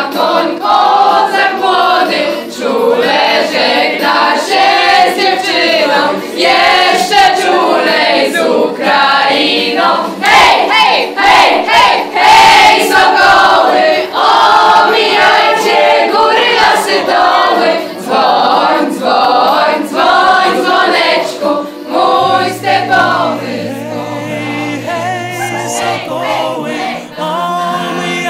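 A choir singing, with a steady low note sounding underneath during the last few seconds.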